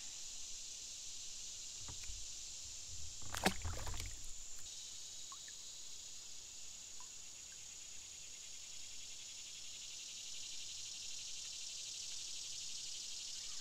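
Small movements in a plastic kayak: low bumping, and a sharp clatter about three and a half seconds in, over a steady high-pitched insect buzz. A faint trill joins the buzz about five seconds in.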